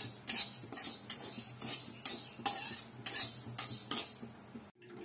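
Metal spatula scraping and clicking against an aluminium kadai while stirring split moong dal that is dry-roasting without oil: a string of irregular scrapes and taps that stops suddenly near the end.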